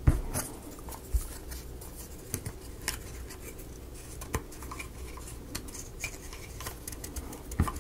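Scattered light clicks, taps and scrapes of small laser-cut plywood kit parts being handled and pressed together while a rubber O-ring is worked into place.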